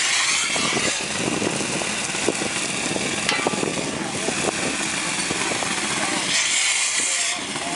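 Shotcrete nozzle spraying concrete with compressed air: a steady hiss and spatter that grows louder and brighter in the first second and again near the end, with a steady engine-like drone underneath.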